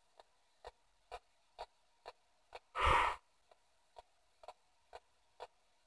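P-SB7 spirit box sweeping through radio stations: faint clicks about twice a second as it steps across the band, with one short, louder burst of radio sound about three seconds in.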